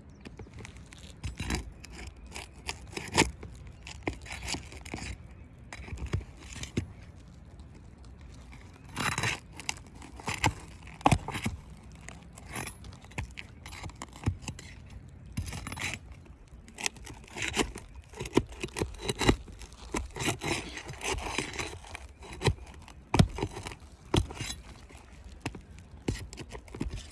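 Asphalt roof shingles being pried loose: irregular scraping and crackling as the sealant bonds between the shingles are broken, with many sharp knocks of the prying tool against the shingles.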